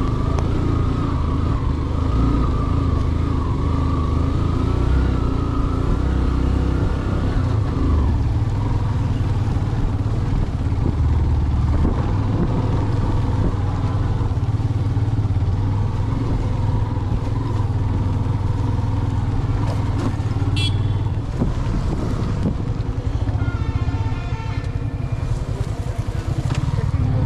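Motorcycle engine running steadily under way, a constant low rumble with small rises and falls in engine speed.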